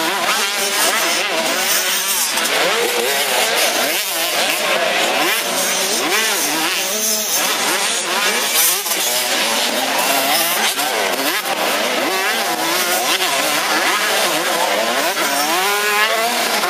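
Several 85 cc two-stroke motocross bikes revving hard under load, their overlapping engine notes rising and falling constantly as the riders open and close the throttle and shift gears.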